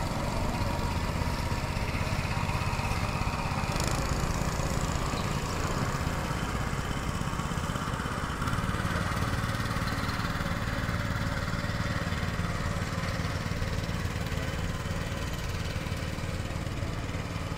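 Small outboard motor on a canopied wooden country boat running steadily, a low small-engine drone whose note changes slightly about halfway through.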